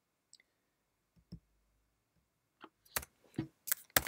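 Clicks of a computer keyboard and mouse as a value is typed into a field: a few sparse clicks, then a quicker run of keystrokes over the last second and a half.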